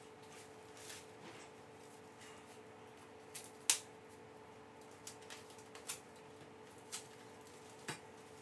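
Scattered clicks and crinkles of packaging wrap being handled and pulled off a chair leg, with one sharper click about three and a half seconds in, over a faint steady hum.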